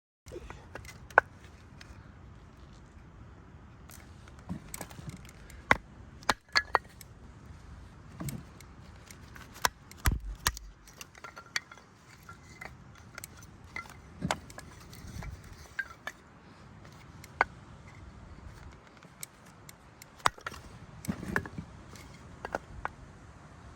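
Camp gear being handled: scattered sharp clicks, clinks and knocks at an uneven pace, a few of them louder, over a steady low hiss.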